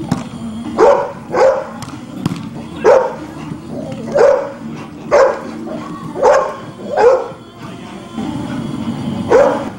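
Dog barking repeatedly, about ten loud, sharp barks at irregular intervals of roughly half a second to a second.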